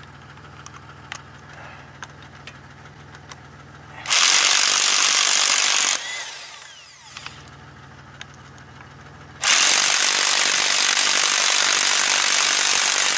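Electric impact wrench run in two loud bursts, about two seconds and then nearly four seconds, working on the lug nuts of a seized wheel. The car's engine idles steadily before and between the bursts.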